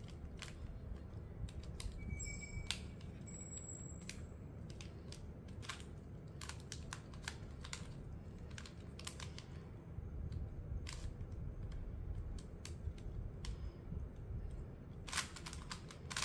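Plastic clicking of a Monster Go magnetic Pyraminx being turned by hand in quick, irregular twists.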